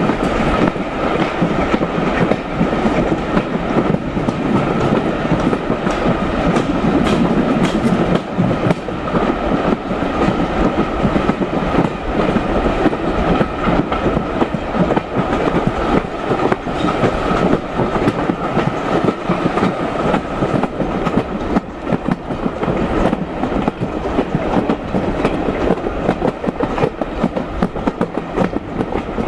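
Heritage railway carriage running steadily along the line behind a steam locomotive, with wheels clicking over the rail joints and a continuous rumble.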